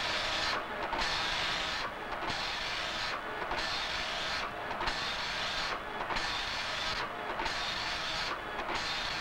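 Computer printer printing onto fanfold paper: a steady buzzing rasp that breaks off for a moment about every 1.3 seconds, in a regular line-by-line rhythm.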